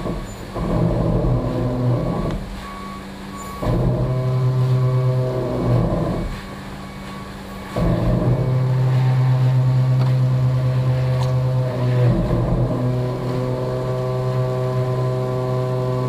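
Caterpillar C13 diesel of an Oshkosh concrete mixer truck. It is held at a steady raised rpm for spells of a few seconds, about four times, and drops back to a lower idle between them, each change coming suddenly.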